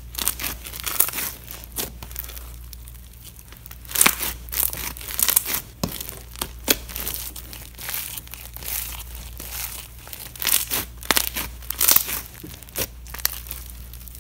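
Hands squeezing and kneading foam-bead slime (floam), the packed foam beads giving off crunchy crackling and popping in irregular clusters of sharp clicks.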